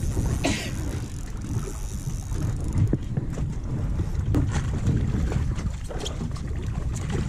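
Fishing boat running on the sea: a steady low motor rumble with water knocking and splashing against the hull, and wind on the microphone.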